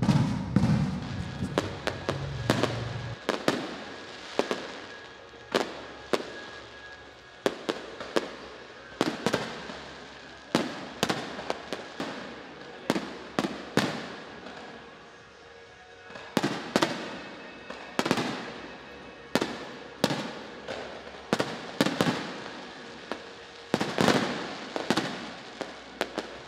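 Fireworks display: aerial shells bursting one after another in sharp bangs, about one or two a second and some in quick pairs, with crackling between the bursts.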